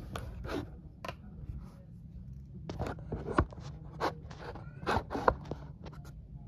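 Handling noise: irregular short clicks, taps and scrapes, most of them from about three to five and a half seconds in, over a faint steady low hum.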